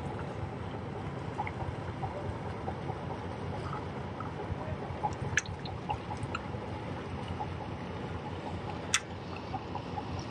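Water lapping and gurgling against shoreline rocks, with scattered small ticks and one sharp click about nine seconds in.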